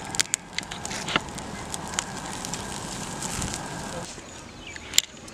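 Open wood fire of dry twigs crackling, with many sharp pops over a steady rush of flame. About four seconds in the crackling thins out, and one loud pop comes near the end.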